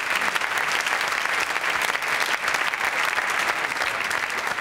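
Live audience applauding: dense, steady clapping.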